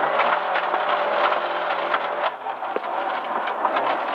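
Fiat Cinquecento rally car's engine running hard under load, heard from inside the cabin, with gravel pinging and rattling against the car as it drives a gravel stage.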